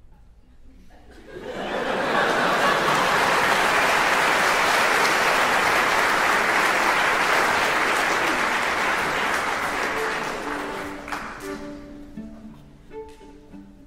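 Audience applauding, swelling up about a second and a half in, holding steady, then dying away near the end as a few short string notes come in.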